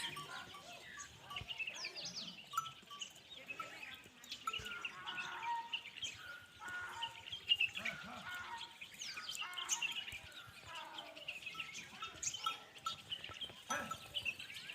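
Livestock bleating, with neck bells clinking and birds chirping throughout in many short calls.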